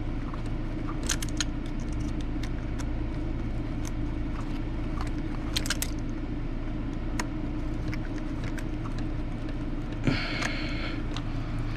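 Scattered light clicks and clinks of hand tools and small metal parts being worked on an RC car's front end, over a steady low hum. Near the end a brief buzzing rattle lasts about a second.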